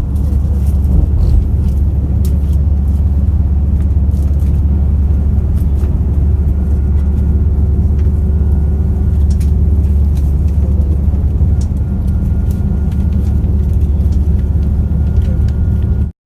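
Steady low rumble of a moving road vehicle heard from inside, with a few faint clicks and rattles, cutting off suddenly near the end.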